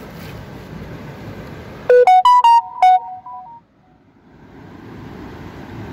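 A short synthesized jingle: a quick run of bright electronic notes lasting about a second and a half, over steady background noise. The sound then drops out abruptly and the background noise fades back in.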